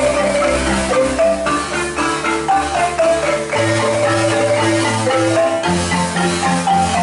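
An ensemble of wooden marimbas played with mallets, including a bass marimba: quick interlocking melody and chord notes over a low bass line that changes note every couple of seconds.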